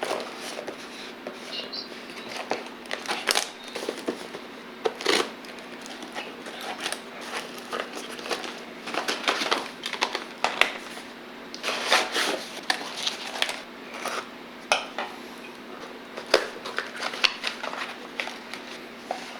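Packaging being handled and opened: irregular crinkling and crackling of plastic and cardboard, with a steady low hum underneath.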